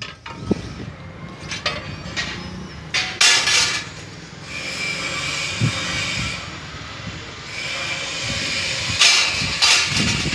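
Steel rods clanking against a hand-operated bar-bending machine: several sharp metal knocks and rattles, the loudest about three seconds in, followed by a steady rushing hiss.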